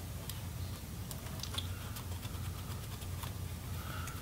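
Scattered faint clicks and light taps of fingers and a small screwdriver handling a thin cable and parts inside an opened laptop, over a steady low hum.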